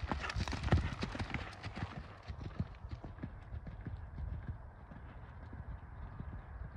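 Horse's hoofbeats on arena sand, a run of dull thuds that is loudest for the first two seconds as the horse passes close, then fainter as it moves away.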